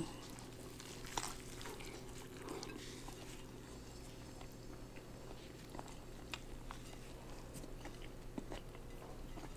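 A person biting into a cheeseburger and chewing it: one sharp bite about a second in, then faint, scattered mouth clicks. A steady low hum runs underneath.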